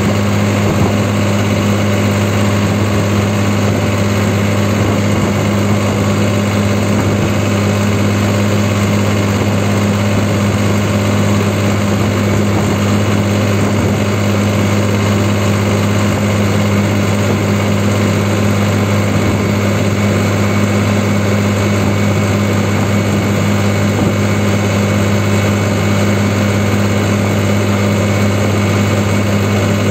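New Holland 3630 Super Plus tractor's diesel engine running at a steady throttle while driving on the road, heard from the driver's seat. Its pitch and loudness hold constant throughout.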